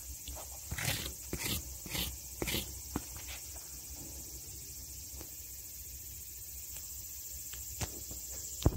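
Steady high-pitched drone of insects calling, with a cluster of short clicks and taps in the first few seconds and one sharp knock near the end.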